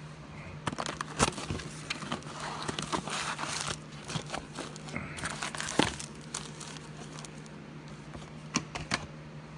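Foil-wrapped Donruss football card packs crinkling and rustling as they are handled and stacked, with several sharp taps of packs and cardboard against the table.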